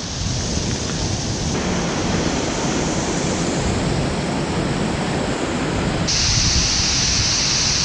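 Steady rush of a waterfall heard close up from within its spray. The sound shifts abruptly about a second and a half in, and again about six seconds in, when it turns brighter and a little louder.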